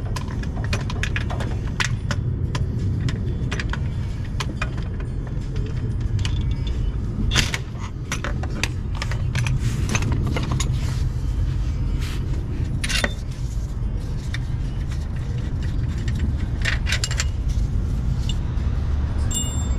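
Metal hand tools clinking and clattering in many short, irregular clicks during work under a car, over a steady low rumble.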